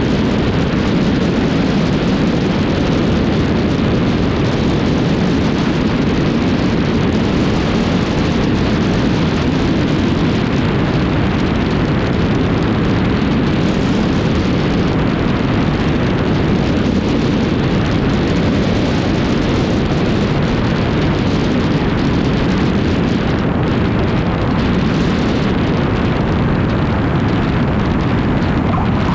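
Steady rush of wind and airflow over a wing-mounted action camera on a Cessna 152, with the plane's four-cylinder engine and propeller droning underneath.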